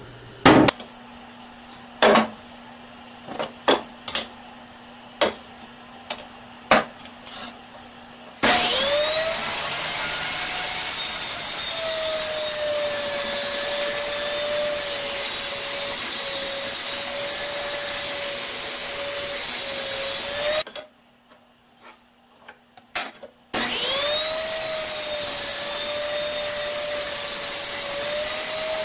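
A wooden mallet knocks sharply several times on a small benchtop table saw. The saw's motor then starts with a rising whine and runs loud and steady while a board is fed through the blade. About 20 seconds in it drops out, a few knocks follow, and then the saw starts up again with the same rising whine and runs on.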